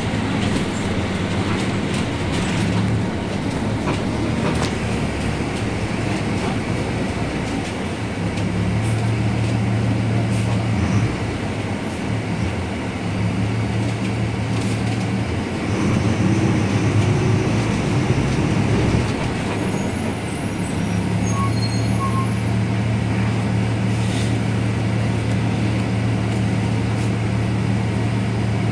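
Mercedes-Benz 1724L bus with a Caio Apache Vip IV body under way, its differential droning very loudly. A low, steady hum fades and returns several times as the bus changes speed, over engine noise and light body rattles.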